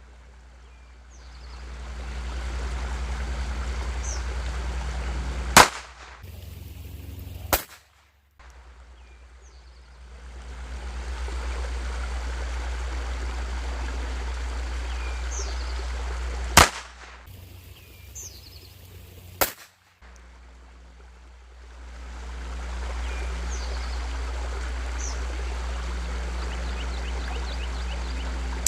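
Four shots from a Colt Junior .22 Short pocket pistol, in two pairs: two shots about two seconds apart, then about nine seconds later two more about three seconds apart. Between the shots there is steady outdoor background noise that drops out after each pair and slowly swells back, with faint bird chirps.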